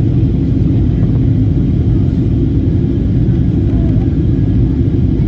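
Steady low cabin rumble of a Boeing 737-800 in flight, the mix of its CFM56 jet engines and airflow heard from a seat by the wing.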